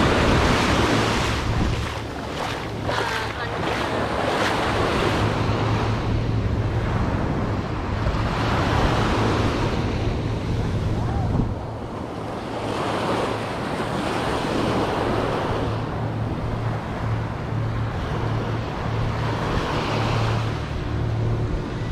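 Ocean surf: waves breaking and washing up the sand, swelling and fading every few seconds, with wind buffeting the microphone and a steady low hum underneath.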